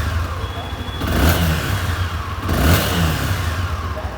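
Honda CB Twister 250's single-cylinder engine idling with two short, light throttle blips, about a second in and again near three seconds. Each blip rises in pitch and falls back to idle.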